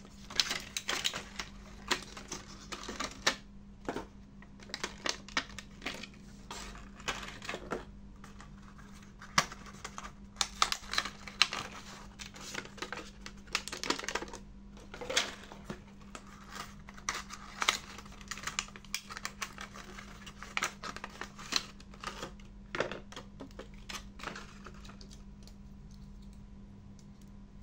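Irregular clicks, taps and crinkles of hands opening plastic-windowed boxes and packs of small LED bulbs and handling the bulbs. A steady low hum runs underneath.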